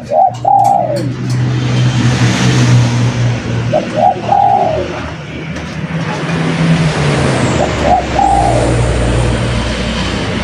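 Spotted dove cooing: three short coo phrases, about four seconds apart, over a steady low hum and hiss.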